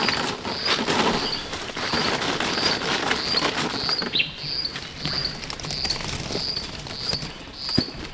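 A bird's short high chirp repeating at an even pace, about two a second, over rustling and handling noise from people moving through vegetation, with a few light knocks.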